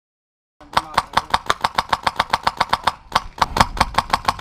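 Airsoft rifle firing full-auto, a rapid even string of shots about ten a second, starting about half a second in, with a brief break near the end.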